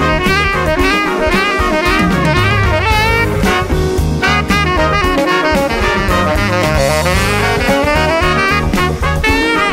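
Jazz band recording: a saxophone plays a bending, ornamented melody line over drum kit and bass.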